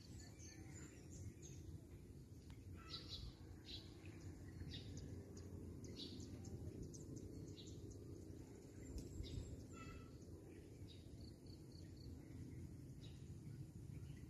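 Faint outdoor ambience: a steady low background rumble, with small birds chirping in short high calls scattered throughout.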